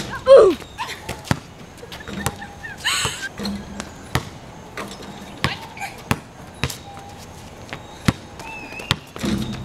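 Basketballs bouncing on a concrete court, an irregular series of sharp thuds. A short, loud shout with a falling pitch comes just after the start, and brief fainter voices follow.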